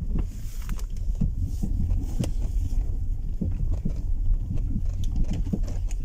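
In-cabin road noise of a second-generation Toyota Prius creeping over a rocky dirt forest track: a steady low rumble with scattered small knocks and clicks from stones under the tyres and the suspension working.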